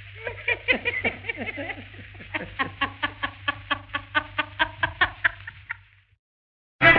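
A man laughing in a rapid run of 'ha-ha' bursts, about five a second, on an old narrow-band film-song recording with a low steady hum. The laughter fades out about six seconds in, and after a brief silence the next song's orchestral music starts just before the end.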